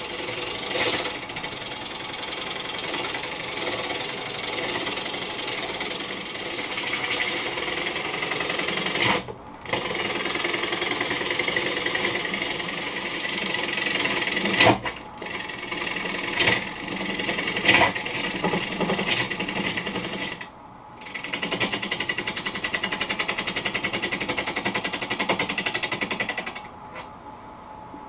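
Gouge cutting the outside of a wet wood bowl blank spinning on a Laguna lathe, a loud rapid rattling cut. The cut breaks off briefly three times and stops near the end, leaving the lathe running more quietly.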